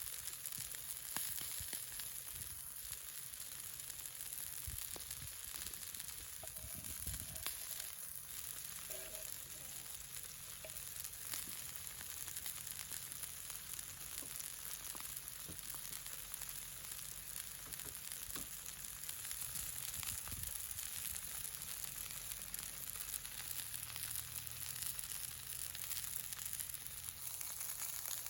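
Deer fillet steak frying in oil in a pan: a steady sizzle with scattered small crackles.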